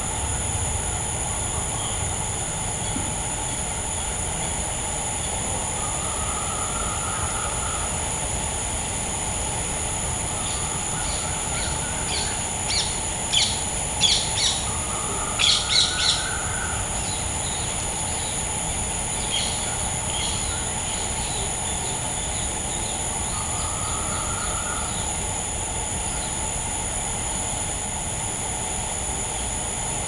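Forest ambience: a steady high-pitched insect drone of two unbroken tones, with a short rising call recurring every five or six seconds. Birds chirp in a quick cluster near the middle, the loudest sound here.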